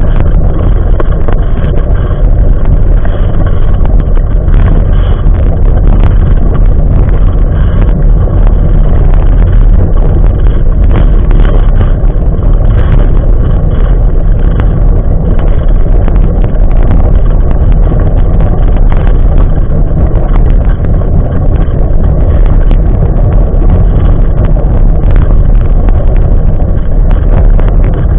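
Steady, loud rumble of a jogging stroller's wheels rolling over asphalt, carried through the frame to a microphone mounted on the stroller, with small knocks and rattles throughout.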